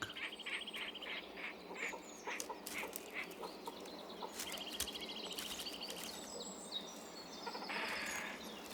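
Grey heron colony: a run of short calls repeating two or three times a second, with a rapid rattling trill near the start and again about five seconds in, and a harsher, rougher call near the end.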